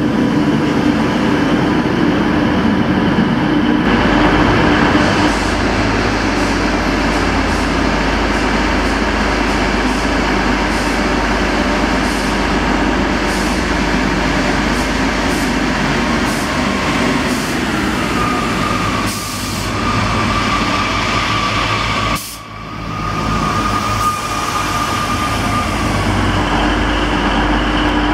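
Pacer diesel railbuses, among them Class 144 unit 144021, running at the platform and pulling away: a continuous diesel engine drone with a steady low hum. A steady high whine joins for several seconds past the middle.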